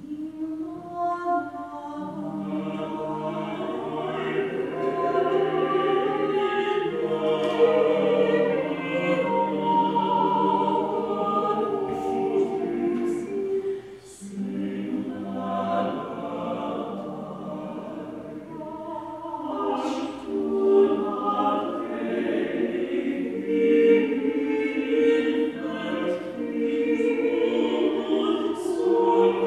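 Small choir of women's and men's voices singing a slow hymn in long held notes, with a short pause for breath about halfway through.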